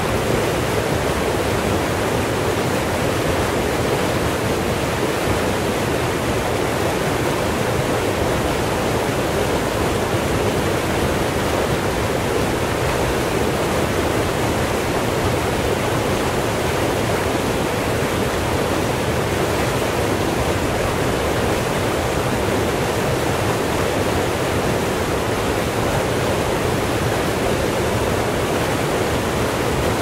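Fast river rushing over rocks, a steady, unbroken whitewater rush with no pauses or changes.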